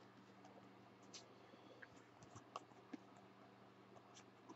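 Near silence with a faint steady hum, broken by a few faint, scattered clicks of trading cards and their wrapper being handled.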